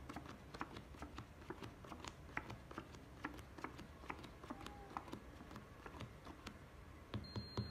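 Playing cards being dealt and flipped onto a felt table: light, irregular clicks and snaps, a few each second.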